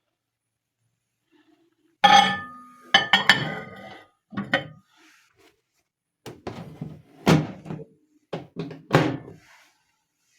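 Kitchen containers and utensils being set down and shifted on a counter: a series of knocks and clinks, the first with a short ringing tone.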